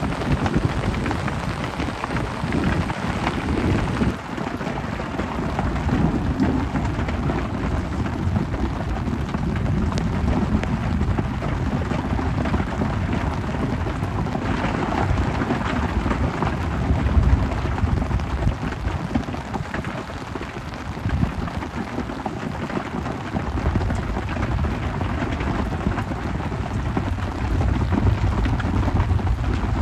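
Heavy rain falling steadily, with a low rumble of thunder underneath that grows stronger near the end.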